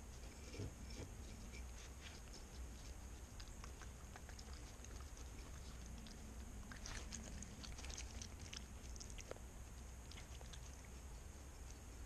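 Raccoon eating sunflower seeds and cracked corn right beside the microphone: a steady run of small crunches and clicks as it chews and noses through the seed, thickest about seven to nine and a half seconds in.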